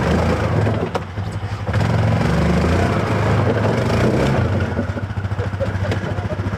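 ATV engine running under load and revving up and down while climbing a rocky trail, easing off briefly about a second in before the throttle comes back on.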